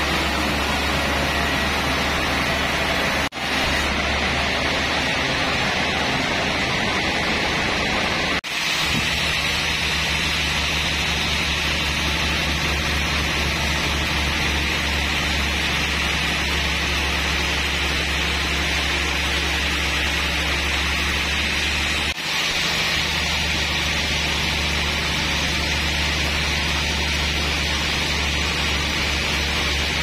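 Sawmill band-saw headrig running steadily without cutting: a constant machine hum under a hiss. The sound drops out briefly three times.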